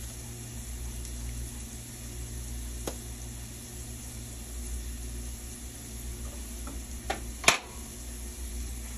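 Scrambled eggs sizzling softly in a frying pan while a coated wire whisk stirs them, over a steady low hum. Two sharp knocks come near the end, the louder one about seven and a half seconds in, as the whisk leaves the pan.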